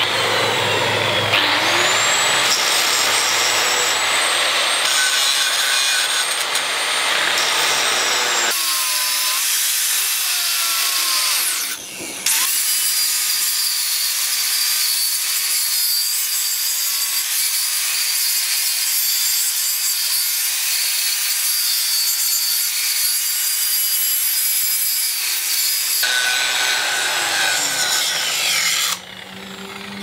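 Handheld electric angle grinder cutting into steel: a high motor whine over a rough grinding rasp from the disc biting the metal. It cuts out briefly about twelve seconds in, then runs on and stops about a second before the end.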